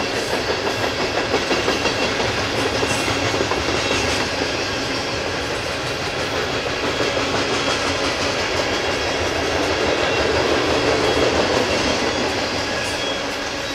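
Freight train cars rolling past with a steady rumble, their wheels clicking over the rail joints.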